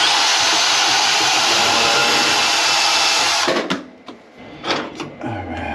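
Cordless power tool run in one steady burst of about three and a half seconds, cutting off suddenly, followed by a few light metallic clicks.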